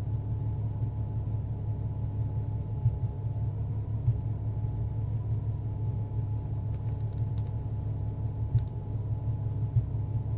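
Car engine idling roughly: a steady low rumble broken every few seconds by a louder uneven jolt, the stumble of a rough idle.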